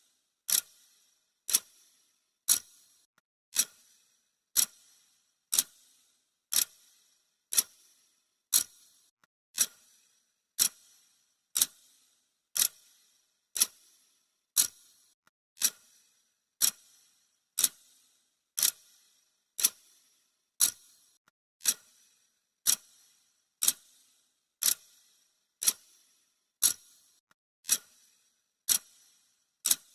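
Clock ticking sound effect: a sharp, even tick about once a second, marking the seconds of a countdown timer.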